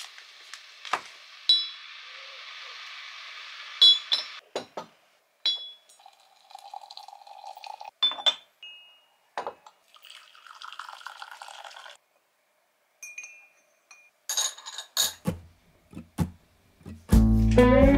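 Glassware and tableware clinking: a series of separate sharp clinks, several with a brief high ring, between stretches of steady hiss. Guitar music comes in near the end.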